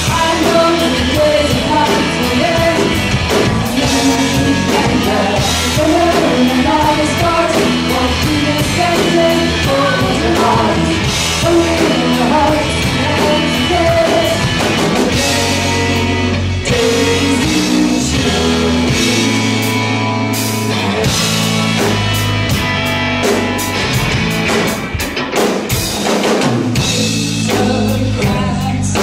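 Power-pop rock song: singing over drum kit and guitar.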